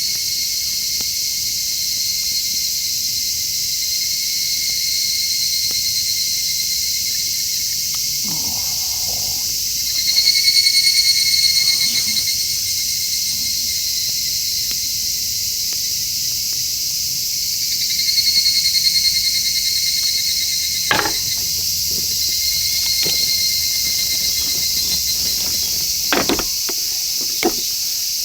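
Chorus of insects trilling steadily, with some trills swelling louder about a third of the way in and again past halfway. A few sharp knocks near the end.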